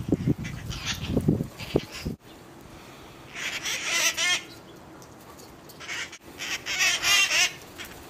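Flock of red-headed conures (wild parakeets) giving harsh, grating squawks in two bouts, about three seconds in and again about six seconds in. The first two seconds hold low muffled rumbling and thumps instead.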